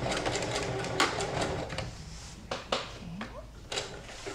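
Singer sewing machine stitching through thick denim in a short run for a backtack at the end of the seam, then stopping. A sharp click about a second in and a few more clicks later as the machine and fabric are handled.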